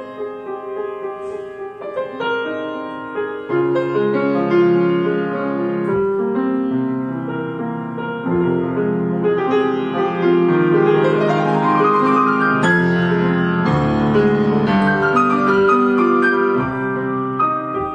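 Grand piano played solo, full chords with a run of notes climbing upward about ten seconds in and another sweeping back down near the end; the playing gets louder a few seconds in.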